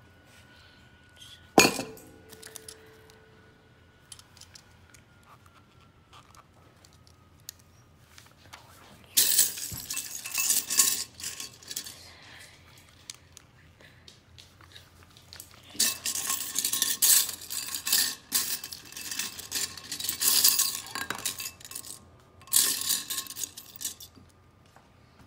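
Loose plastic Lego pieces rattling and clinking against a ceramic bowl as a hand rummages through them, in several bursts of clatter. About two seconds in there is a single sharp clack that rings briefly.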